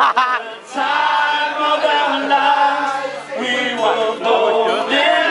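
Voices singing together, holding long notes for a couple of seconds and then sliding into wavering notes a little past the middle.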